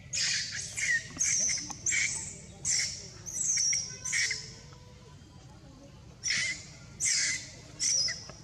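A baby monkey crying: about ten short, high-pitched shrieks in two runs, with a pause of about two seconds between them.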